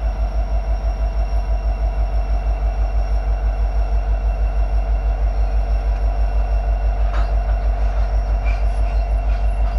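Norfolk Southern EMD SD70ACe diesel-electric locomotives passing slowly at close range, their engines running with a steady low pulsing throb and hum. A few faint clanks come near the end.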